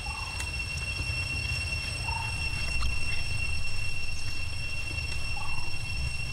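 Outdoor ambience: a steady high-pitched whine and a low rumble, with three short chirps spaced a few seconds apart.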